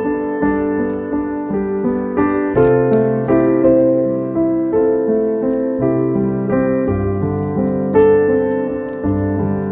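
Background piano music: a calm melody over low bass notes, each note struck and then fading.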